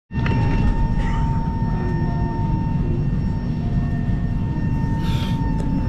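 Airliner cabin noise on the ground after landing: a steady low rumble with a steady hum above it.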